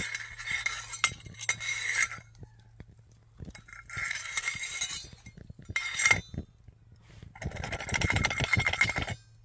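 Metal lid scraping and clinking against a titanium alcohol stove in several bouts of a second or two, as it is worked over the burner to snuff the flame, which keeps burning.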